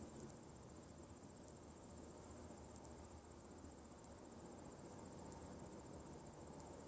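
Faint, steady high-pitched pulsing trill, like an insect, over a low, even rumble.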